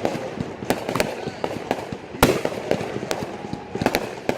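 Fireworks bursting: an irregular run of sharp bangs and crackles, the loudest bang about two seconds in.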